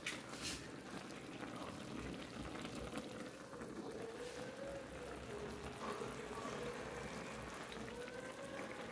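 Chicken pieces bubbling in their own juices and fat in an aluminium pot on the stove, a steady boiling noise with fine crackling. A couple of sharp clicks at the very start.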